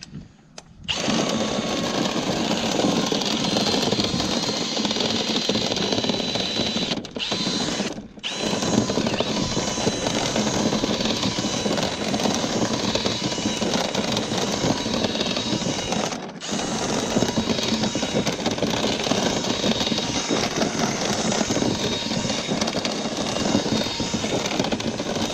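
Power drill spinning a rotary brush through a lint-clogged dryer vent duct, running steadily with three short stops. It starts about a second in.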